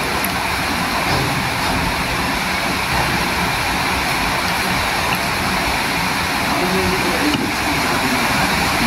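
Steady, loud rushing noise that holds an even level throughout, like a running fan or motor.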